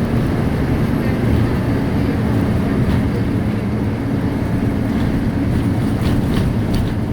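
Steady low rumble and running noise inside a moving vehicle, heard from within the cabin.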